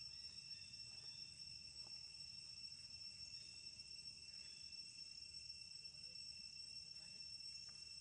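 Faint, steady, high-pitched insect chorus drone, with a few faint ticks.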